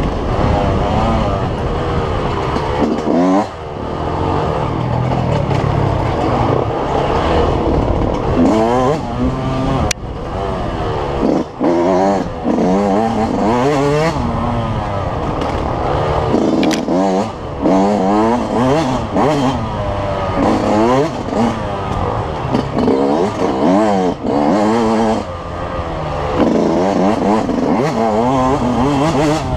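2005 Yamaha YZ125 125cc two-stroke single-cylinder engine under hard riding, revving up and backing off over and over, its pitch climbing and dropping every second or two.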